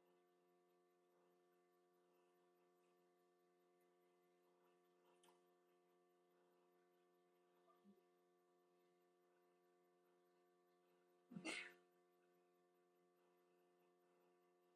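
Near silence: a faint steady hum, broken once about two-thirds of the way through by a short, faint noise.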